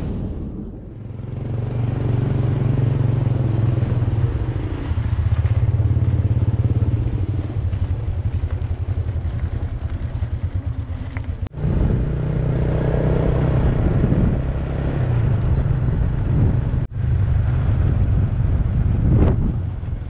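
Motorcycle engine running steadily while riding along a road. The sound cuts out for an instant twice, near the middle and about two thirds of the way through.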